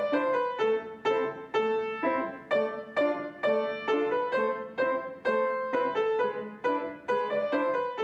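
Background music: a piano playing a simple melody, about two notes a second, each struck and left to ring.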